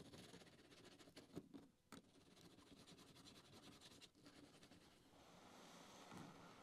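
Faint scratching and rubbing of a small hand file and sanding sponge worked along an HO-scale model railway rail, with a few light clicks. The rail joint is being smoothed so that trains stop bumping over it.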